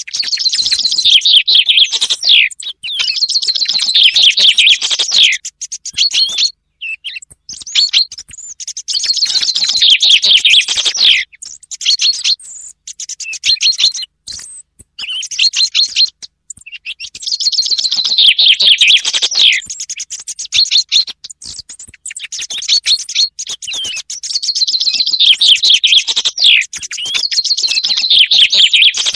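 Recorded common chaffinch song, a rapid series of falling notes lasting about two to three seconds and repeated every few seconds, mixed with fainter song thrush phrases, as a bird-hunting lure.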